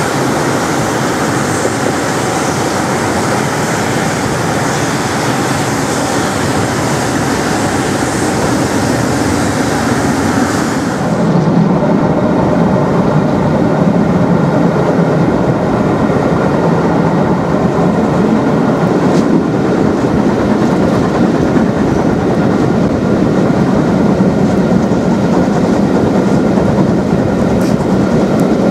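Railway coach running along the track at speed, heard from aboard the train: a steady rumble of wheels on rail with some clickety-clack. About eleven seconds in the hiss drops away and the low rumble gets louder.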